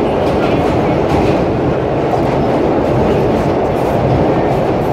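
Vintage R1/9 'Arnine' subway car running at speed through a tunnel, its wheels clattering steadily over the rails. The running noise is loud, dense and deep, heard from inside the car.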